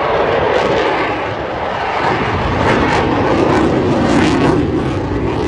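Eurofighter Typhoon's twin jet engines running loud and steady as the fighter makes a slow, high-angle-of-attack pass.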